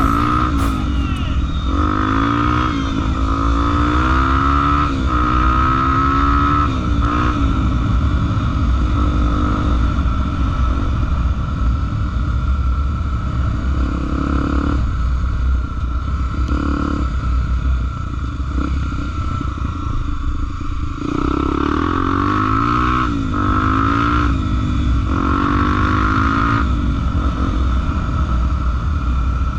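Honda XR250 Tornado trail motorcycle's single-cylinder four-stroke engine running under load on an off-road trail. The revs rise and fall again and again as the throttle is worked, most busily early on and again from about 21 s in.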